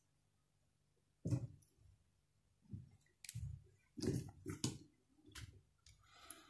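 Scattered clicks and soft knocks, about six spread irregularly over a few seconds after a quiet first second, with a faint scratchy rustle near the end.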